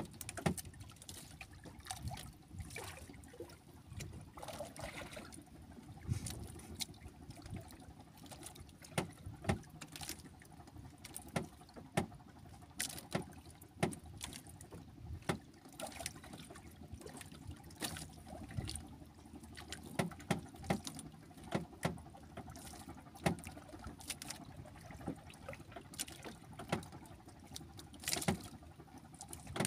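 Water lapping and trickling against the hull of a small outrigger fishing boat, with many irregular small clicks and knocks.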